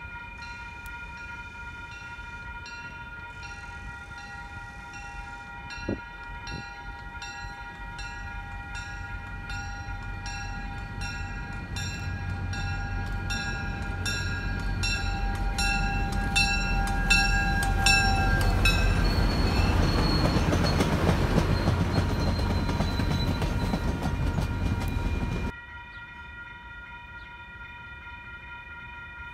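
Railroad crossing bell ringing with steady, regular strikes while a train's rumble builds and passes, loudest over its last few seconds. About 25 seconds in the train noise cuts off suddenly, leaving the bell ringing alone.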